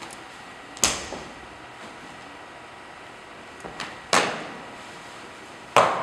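Three sharp slaps or stamps from a wushu performer's moves, about a second in, just past four seconds and near the end, each ringing briefly in the room. Two fainter knocks come shortly before the second hit.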